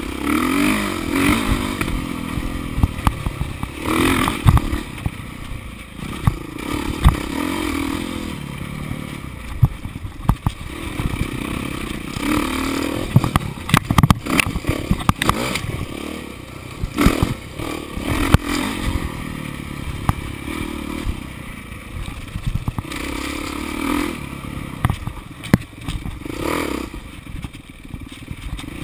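Off-road dirt bike engine revving up and down as it is ridden hard over rough trail, heard from on board, with frequent clattering knocks as the bike hits bumps and rocks.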